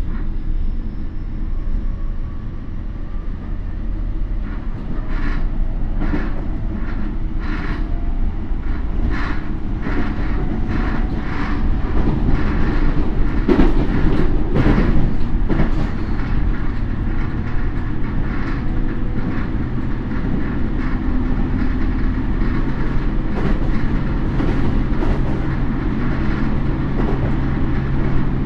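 Inside a Toei 10-300 series electric train at speed, with a Mitsubishi IGBT inverter: the car is one known as an 'abnormal-noise' unit. A faint motor whine rises slowly at first, then a steady run of wheel clicks over rail joints is loudest through the middle, and a low steady hum follows.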